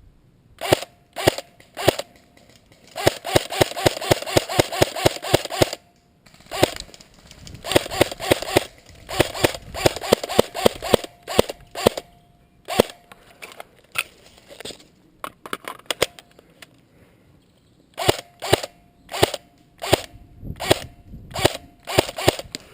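Airsoft rifle firing: a few single shots, then two long full-auto strings of rapid clicks, then more single shots near the end.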